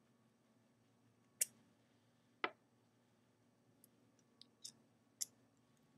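A few sharp clicks and taps from handling a vape mod and its tank: two louder clicks in the first half, then several fainter ticks.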